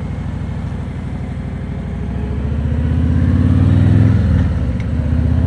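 Harley-Davidson Road King Special's V-twin engine accelerating under load, rising in pitch and loudness for about four seconds. It eases off briefly and then pulls again, as at a gear change.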